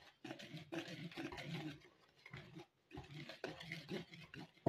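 Wire whisk stirring dry gram flour in a plastic bowl: irregular scraping and rustling strokes, with a short lull about two seconds in.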